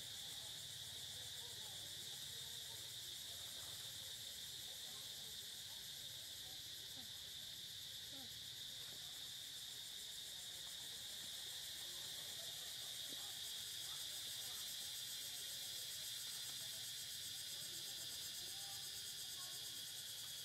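Steady chorus of insects: an even, high-pitched drone that holds without a break.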